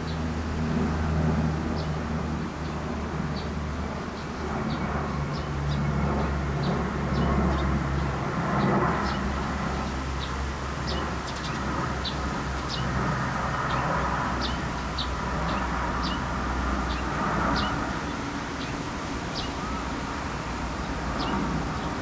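Birds in an aviary giving short, high chirps, repeated irregularly about once or twice a second, over a steady low hum.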